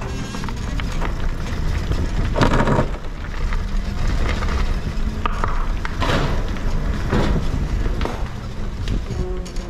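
A kart rolling slowly over gritty asphalt and onto a steel chequer-plate floor, its tyres and chassis giving a steady low rumble. Two louder scraping bursts come about two and a half and six seconds in.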